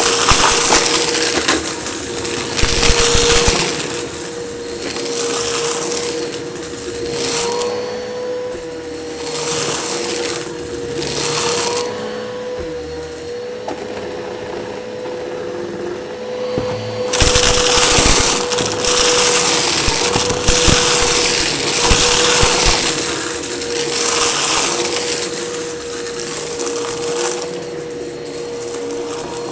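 Eureka vacuum cleaner running with a steady motor whine. Repeated loud bursts of crackling come as it sucks up crunchy debris along an edge.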